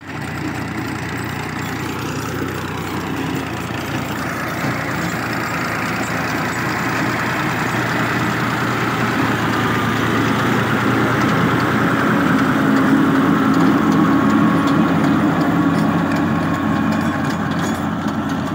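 Ghazi tractor's diesel engine running steadily under load as it drives a rotavator tilling soil. It grows gradually louder over the first two thirds as the tractor comes closer, then eases slightly near the end.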